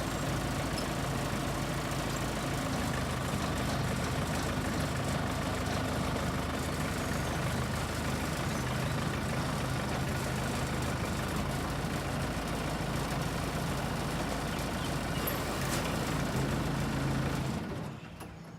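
Backhoe's diesel engine running steadily at an even pitch, fading out near the end.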